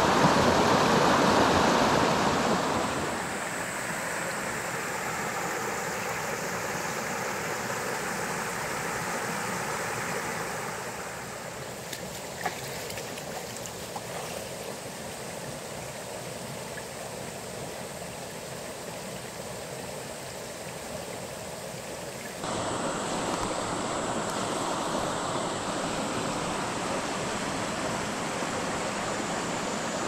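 Mountain headwater stream running over rocks and small cascades: a steady rush of water, loudest in the first few seconds, then changing abruptly in level a few times.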